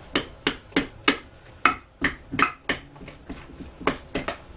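About a dozen sharp, irregular wet clicks and smacks as homemade glue slime is stirred in bowls and pulled up in strands on spoons.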